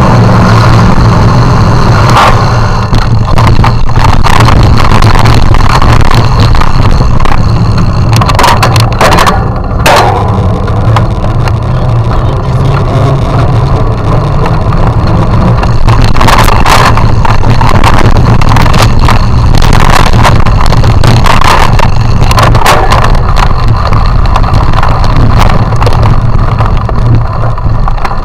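Loud, steady wind and ride rumble on a bicycle-borne action camera rolling over brick pavers and rough trail, with frequent knocks from bumps.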